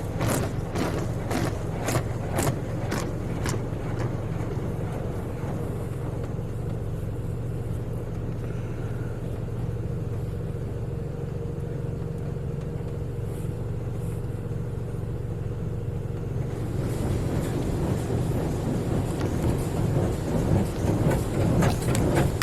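NeXus Crossfire touchless car wash spraying water onto the car, heard from inside the cabin over a steady low hum. The spray beats on the body about twice a second at first, eases off through the middle, then drums on the car again near the end. The driver thinks this may be the rinse pass.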